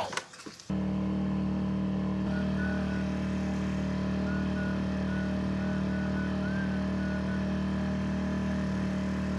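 Sailboat's auxiliary engine running at a steady speed, a constant pitched hum that comes in abruptly under a second in.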